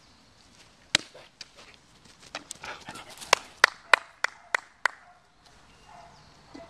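Hand claps: one sharp clap, then a quick run of six claps at about three a second.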